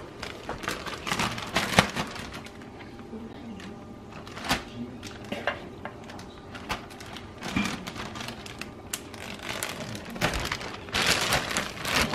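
Plastic zipper bag crinkling as seasoned rabbit pieces are dropped into the breading mix inside it, with scattered light clicks and knocks. The rustling grows denser near the end as the bag is worked.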